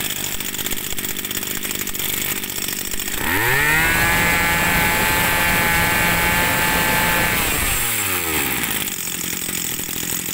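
Kawasaki TG24 two-stroke brush cutter engine idling, then revved up to high speed about three seconds in. It holds steady there for about four seconds, then drops back down to idle.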